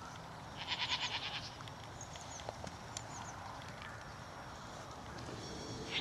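A goat bleats once, a wavering call about a second long, starting about half a second in. A second bleat begins right at the end.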